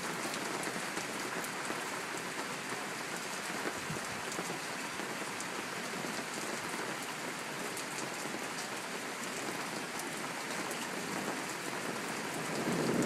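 Steady rain falling during a thunderstorm, an even hiss with faint ticks of single drops.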